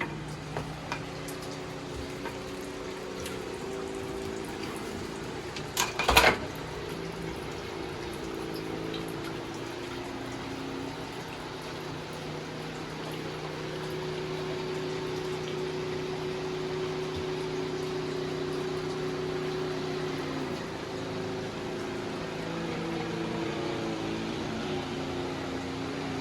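Steady running water, with low sustained tones underneath that change pitch every several seconds. A sharp knock sounds about six seconds in.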